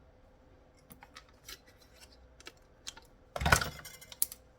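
Small clicks and taps of plastic handset parts being handled and worked apart. About three and a half seconds in comes a louder, longer crackle, followed by one sharp click.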